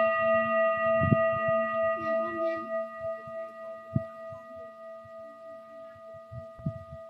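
A singing bowl ringing out after a strike, one clear steady tone with a few higher overtones, slowly fading away. A few soft low thumps come and go underneath.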